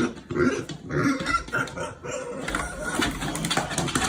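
An animal making short, irregular low calls over the first two seconds or so, followed by a rougher, steadier noise.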